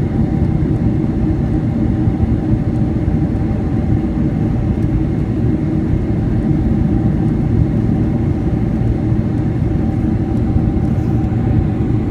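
Boeing 747-400 cabin noise heard inside the cabin during descent: the steady low rumble of the jet engines and rushing air over the fuselage, with a faint steady hum above it.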